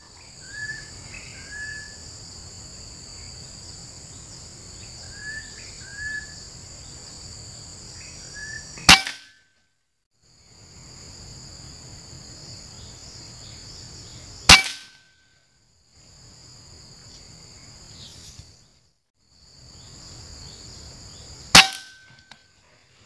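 Three sharp rifle shots several seconds apart, each followed by a brief ringing tone and an abrupt cut in the background. Under them, insects drone steadily at a high pitch, with a few short chirps before the first shot.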